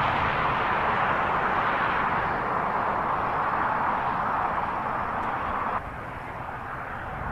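Steady rushing noise of a wildfire burning close by in wind. It drops abruptly about six seconds in to a quieter steady hiss.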